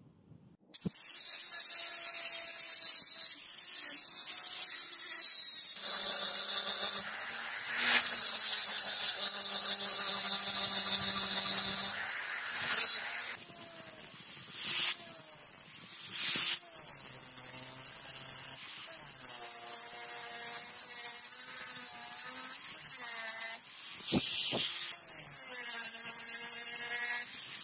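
Angle grinder cutting leaf spring steel with an abrasive disc: a loud, high screech whose motor pitch sags and recovers as the disc bites. It stops briefly several times and starts again.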